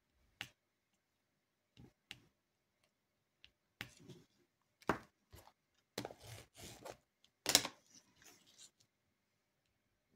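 Scattered light clicks of a drill pen pressing resin diamond-painting drills onto the canvas. From about four seconds in, a busier run of clicks and short rustling bursts as a plastic roller is pressed over the drills, the loudest click a little past halfway, then it goes quiet.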